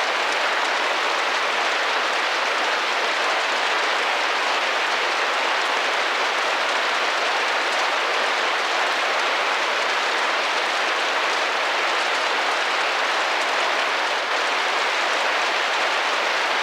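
Steady rain pattering on a window pane, an even hiss of many small drops with no distinct individual hits.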